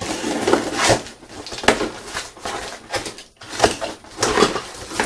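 Items and their packaging being handled and unpacked: irregular rustling with several sharp knocks of small hard parts.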